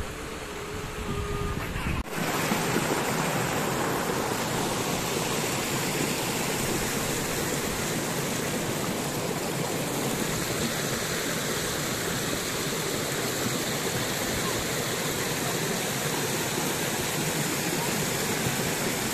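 Waterfall's rushing water: a steady, even rush that starts abruptly about two seconds in, after a quieter stretch.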